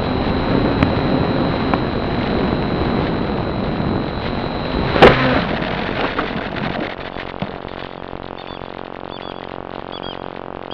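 Onboard audio from a small electric FPV foam plane: a rush of wind and propeller that fades, broken by one sharp knock about halfway through as the plane comes down into the ground. Near the end the rush has died away and small birds chirp repeatedly.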